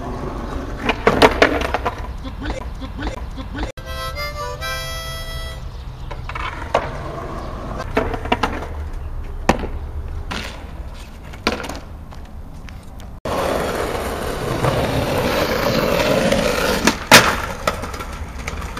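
Skateboard wheels rolling on rough asphalt and concrete, with the sharp clacks of the tail popping and the board landing. There is a brief run of musical notes about four seconds in, and a loud clack near the end as the board hits a concrete ledge.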